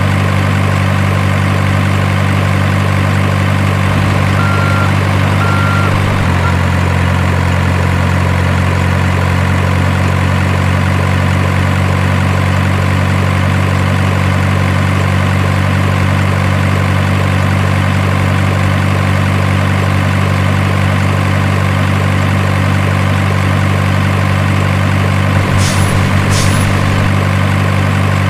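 Heavy truck diesel engine idling with a steady low drone that shifts slightly in pitch about six seconds in. Two short high beeps come just before the shift, and a couple of brief clicks come near the end.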